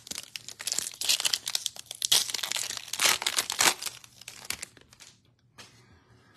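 Plastic trading-card pack wrapper crinkling and tearing as it is ripped open by hand: a dense crackle that dies down about five seconds in.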